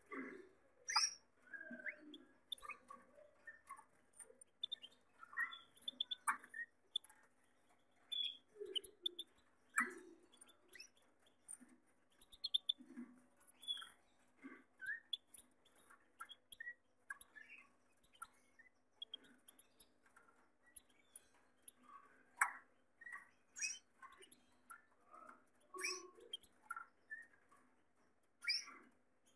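Gloster canaries in a wire cage giving short, scattered chirps and calls, mixed with light clicks and scratches from the birds moving about the cage.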